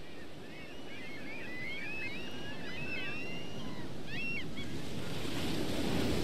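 Sea surf and wind, a steady rush that grows louder toward the end, with birds chirping and whistling in quick overlapping calls through the first four seconds or so.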